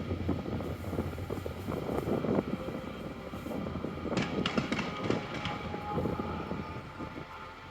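Fireworks going off overhead: a continuous rumble of booms with many quick pops, and a burst of sharp crackling about four seconds in.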